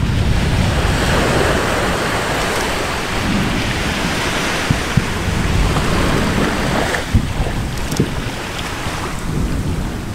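Volcano erupting: a steady rumbling rush of noise, heaviest in the low end, with a few sharp cracks in the second half.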